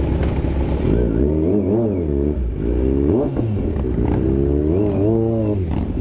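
Harley-Davidson motorcycle engine idling and being revved several times, its pitch rising and falling with each blip of the throttle.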